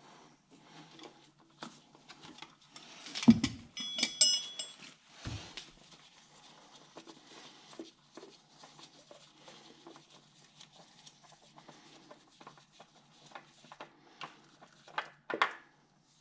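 Hands working around an oil change, handling tools and parts: scattered small clicks and rustles, a knock about three seconds in, then a short metallic clink that rings briefly, another knock, and a few sharp clicks near the end.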